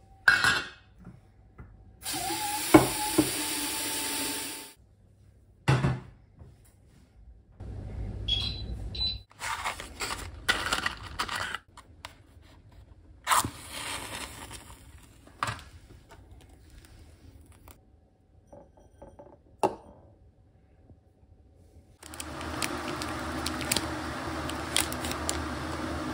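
A string of small kitchen sounds: a mixer tap running for a couple of seconds near the start, scattered knocks and clicks, a match struck and flaring about halfway, and a steady rushing noise through the last few seconds.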